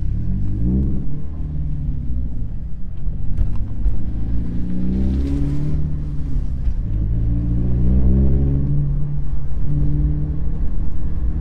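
Scion FR-S's 2.0 L flat-four engine, fitted with a GReddy exhaust, accelerating through the gears: the engine note climbs in pitch about three times, falling back at each upshift.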